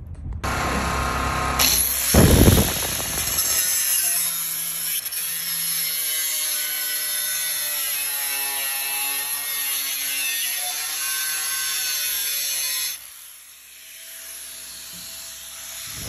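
Angle grinder with a cut-off disc cutting through aluminium sheet: a loud, high-pitched whine over a steady hiss, with a brief louder surge about two seconds in. The cut stops near the end and the sound drops away sharply.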